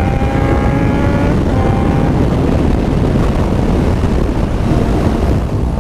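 Yamaha FZ6R's 600 cc inline-four motorcycle engine at highway speed, its pitch climbing slowly, then fading out about a second in and leaving mostly wind rush on the microphone.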